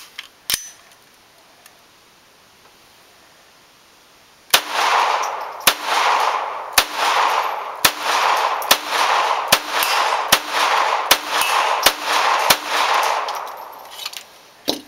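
GSG 1911 .22 LR pistol firing: a single shot about half a second in, then a few seconds later a long string of quick shots at about two a second, each followed by echo.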